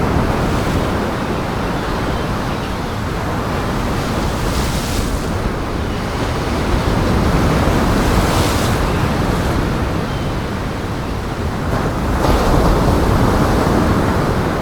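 Heavy surf and strong wind: a steady rush of breaking waves, with louder wave surges about every four seconds.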